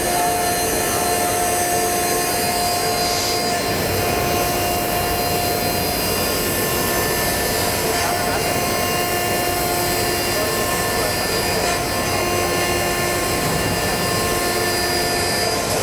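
End mill held in an Albrecht APC milling chuck, rough-milling AISI 1045 steel on a CNC machining center: steady, loud cutting noise with a held whine tone over it.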